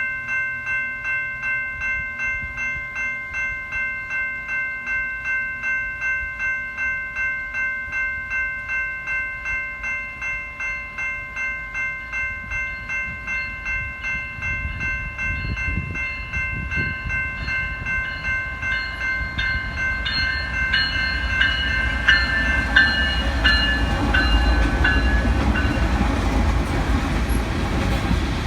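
Railroad grade-crossing bell ringing at about two dings a second, as the low rumble of an approaching freight train's diesel locomotives builds from about halfway and grows loudest near the end.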